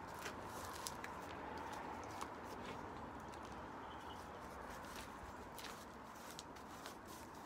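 Quiet outdoor background: a faint steady hum with a few soft ticks, heard while chilli seeds are pressed by hand into a plastic module tray of compost.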